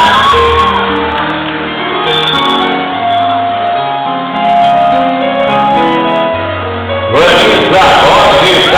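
Ceremony music playing a slow melody of held notes, then about seven seconds in a crowd breaks into loud cheering and shouting over it.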